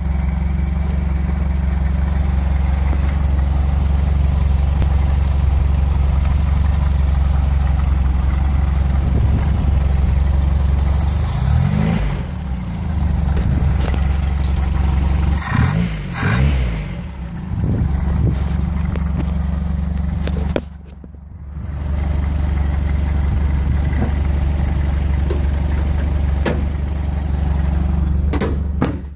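1982 Toyota Hilux's 22R four-cylinder engine, carbureted by a Weber 32/36 and running through a side-piped exhaust, idling steadily, with two quick throttle blips about halfway through.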